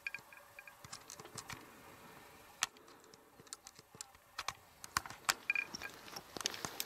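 Dry grass stems crackling and snapping underfoot as someone steps through a field of tall dry grass, heard as irregular sharp ticks that come thicker in the second half. A few brief high chirps come near the start and again about five seconds in.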